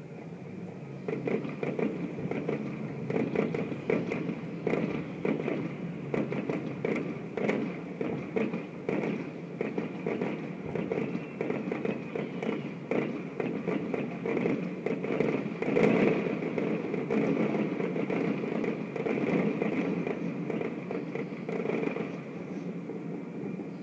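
Fireworks display going off across the harbor: a dense run of bangs and crackles that starts about a second in and is loudest about two-thirds of the way through, over a steady background noise.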